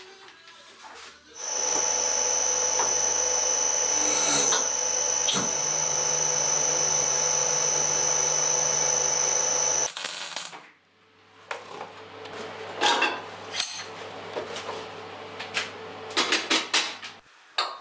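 The press's three-phase electric motor and hydraulic gear pump run for about eight seconds with a steady whine and hum, then cut off abruptly. After that come several short crackling bursts of tack welding.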